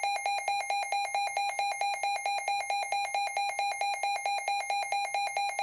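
Weather radio alert tone: an electronic buzzer beeping rapidly at a single fixed pitch, about eight beeps a second, steady in level.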